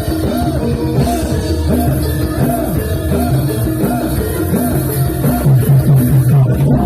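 Gamelan ensemble playing the accompaniment for a jathilan horse dance: steady drumming under a run of short notes that bend up and down in pitch.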